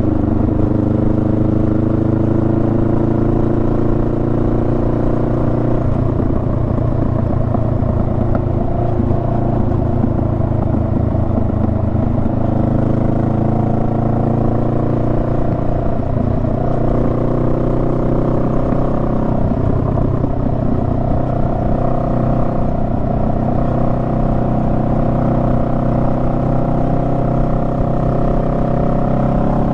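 Honda Rebel 500's parallel-twin engine running on the move, its pitch slowly climbing and then dropping back a few times as the throttle and revs change.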